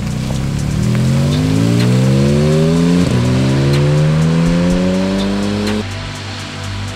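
Porsche 718 Spyder RS's naturally aspirated flat-six accelerating hard, its note rising in pitch, dropping once at an upshift about three seconds in, climbing again, then falling away as the throttle closes near the end.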